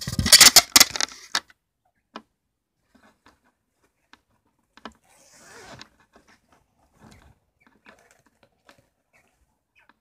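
Handling noise as the phone is moved about and set down beside a wire cage: a loud burst of rustling and knocking for the first second or so, then faint scattered clicks and a soft rustle about five seconds in.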